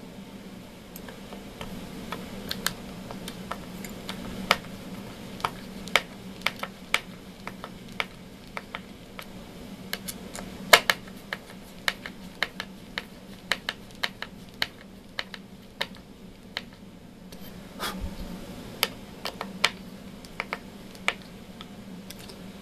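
Phillips screwdriver driving a screw by hand through an aluminium bracket into its base: a string of sharp, irregular clicks and light scrapes over a steady low hum.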